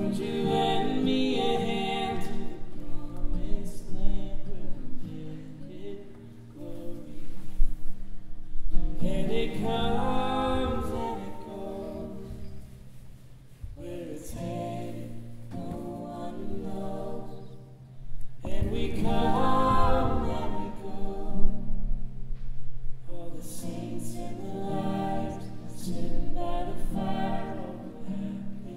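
Several voices singing together in harmony, in long phrases that swell and fall back every several seconds, with little instrumental backing.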